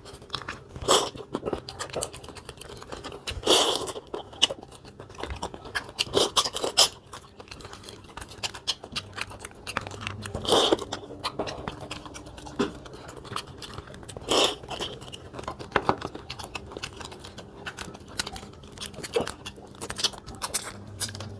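Boiled crab shells cracking and being picked apart by hand, mixed with chewing and crunching, in irregular bursts with several louder cracks.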